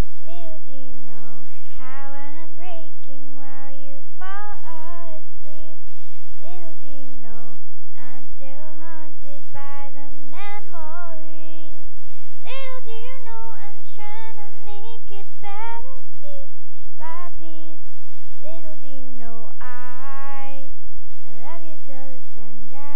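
A young girl singing solo into a microphone, in held notes that bend up and down in pitch, with short breaths between phrases and no instruments heard.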